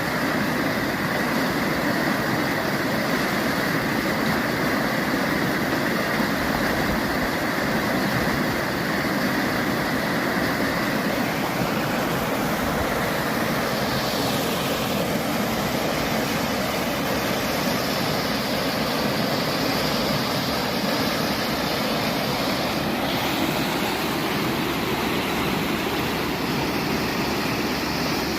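Sea surf: a steady rush of waves washing on the shore, with no breaks or single crashes standing out.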